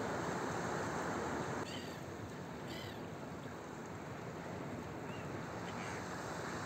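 Gulls calling, a few short high cries, over a steady rush of rough surf and wind. The rush drops a little about two seconds in.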